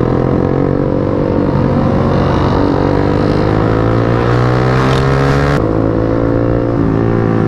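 A small motorcycle's engine running under way, its pitch rising slowly as it speeds up, over wind and tyre noise on a wet road. The sound changes abruptly about five and a half seconds in, then the engine carries on steadily.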